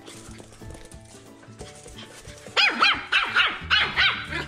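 Pomeranian puppy barking excitedly: a quick run of about six high-pitched yaps a little past halfway, over background music.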